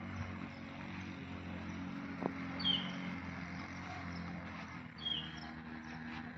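Outdoor ambience: a steady low hum with a few short, falling bird chirps, about two and a half and five seconds in.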